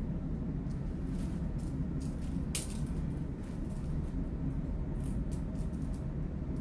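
Scattered light clicks and taps of plastic and metal parts being handled as a flashlight holder and camera mount are fitted on a metal pole, the sharpest click about two and a half seconds in, over a steady low hum of ship's machinery.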